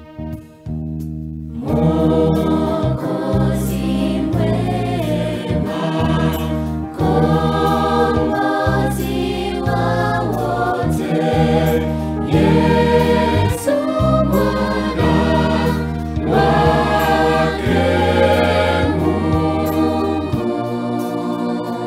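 A school choir of young mixed voices singing a gospel song, the singing picking up again after a brief lull about two seconds in.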